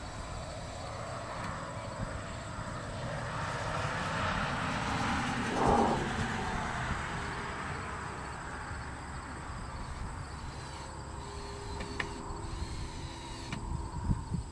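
Distant engine noise that swells for several seconds and then fades, as of something passing by, over a low outdoor rumble. A few sharp knocks come near the end.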